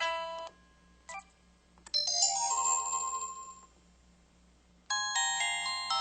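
EV-K100 mobile phone playing its built-in effect sounds through its speaker: short electronic chimes and jingles separated by pauses. A brief blip comes about a second in, a longer melodic jingle about two seconds in, and another jingle starts near the end.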